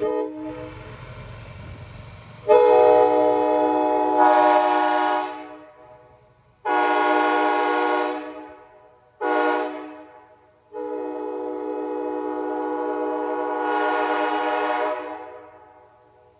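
Nathan AirChime K5HA five-chime train horn, a mutt with sandcast bells, sounding a chord of several tones. A softer sounding comes first, then four loud blasts, long, long, short, long, in the pattern of a grade-crossing signal. Each blast trails off over about a second.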